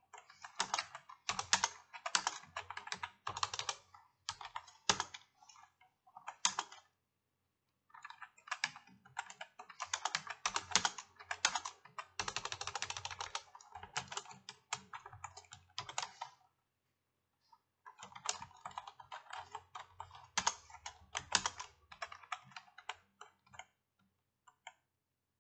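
Typing on a computer keyboard, rapid keystrokes in three runs with short pauses about seven and sixteen seconds in.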